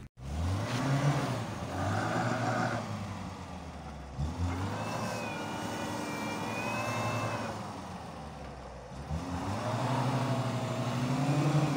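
VAZ-2104 Zhiguli's 1300 four-cylinder engine revving up three times as the rear wheels spin in icy snow: the car is stuck, with a Quaife worm-gear limited-slip differential driving the rear axle. A high whine rides along the second rev.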